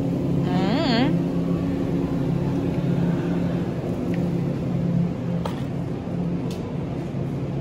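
Steady low machine hum of supermarket equipment, made of several fixed tones, with a brief wavering voice near the start and a couple of faint clicks later on.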